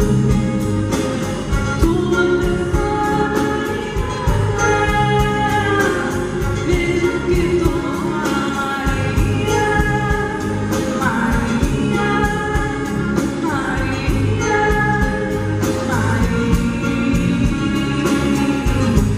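A woman singing lead live into a microphone over full band accompaniment with a steady beat.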